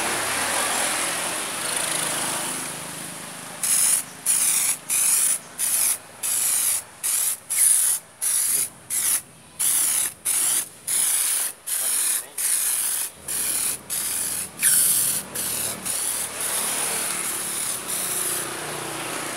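Aerosol can of paint remover spraying: a steady hiss for the first few seconds, then a quick run of short squirts about two a second, then longer squirts, and a steady hiss again near the end.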